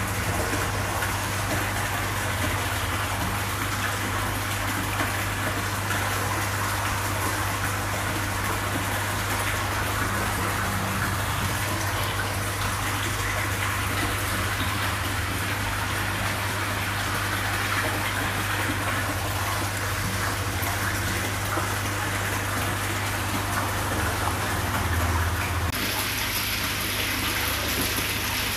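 Steady rush of running water in a koi holding tub, over a constant low hum. A brighter hiss joins near the end.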